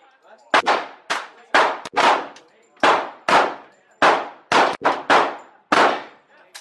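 Gunfire on a shooting range: a rapid, irregular series of about eleven shots, each with a short echoing tail.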